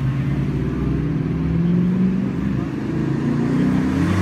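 Car engine running at low speed as a BMW 3 Series coupe drives up and turns past close by, its pitch rising briefly about halfway through.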